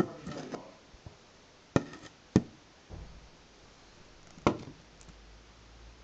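Three sharp knocks in a small room: two close together about two seconds in, and a third a couple of seconds later.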